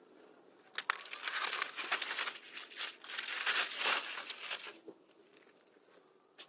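Packaging rustling and crinkling as it is handled, starting about a second in and lasting about four seconds, with a few sharp clicks, picked up by a doorbell camera's microphone.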